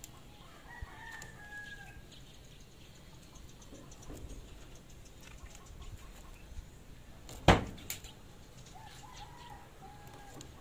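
A rooster crowing twice, once about a second in and again near the end. A single sharp knock about seven and a half seconds in is the loudest sound.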